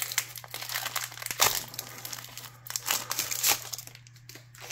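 Trading card pack wrapper crinkling and being torn open, with sharper rips about a second and a half and three and a half seconds in.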